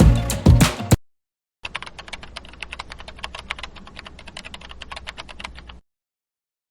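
Rapid, even clicking of keyboard typing for about four seconds, starting shortly after background music cuts off about a second in, and stopping abruptly.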